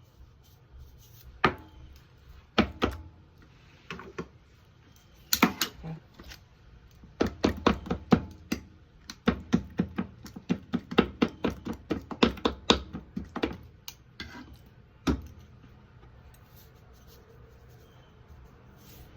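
Kitchen utensil knocking and tapping on a work surface while raw pork chops are prepared: a few scattered single knocks, then a run of quick taps, about three a second, for some six seconds, and one last knock.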